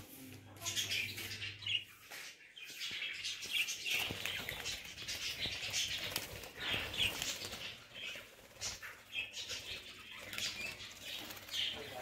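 A flock of budgerigars chattering in many short, high chirps, with wings flapping as birds flutter on and off a perch.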